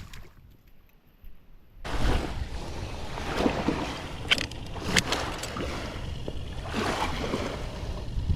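Outdoor wind buffeting the microphone with water splashing and lapping, and a few sharp clicks or knocks in between; the first couple of seconds are much quieter.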